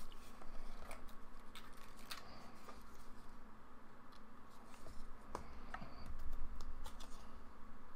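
Irregular small clicks and scratches of a pry tool working under sticky adhesive beneath a flex cable on a tablet screen, over a faint steady hum.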